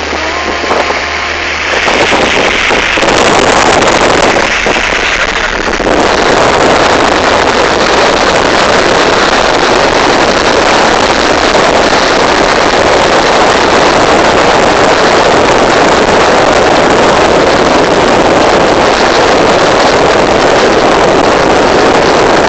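Loud, steady rush of wind and road noise in a moving car, building up over the first few seconds and then holding even.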